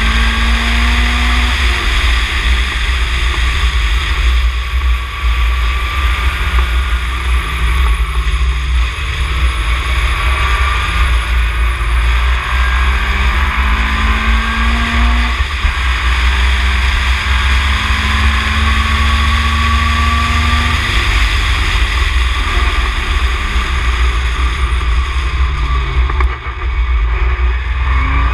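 Ginetta G20 race car's engine at full race pace, its pitch repeatedly climbing and then dropping as the car is driven through the gears and corners. Heavy wind buffeting on the microphone in the open cockpit.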